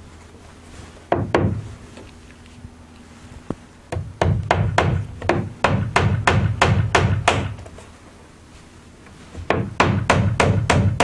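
Hand hammer driving nails into a wooden tongue-and-groove soffit board: two blows about a second in, then a steady run of quick blows, about three a second, from about four to seven seconds in, and another run starting near the end.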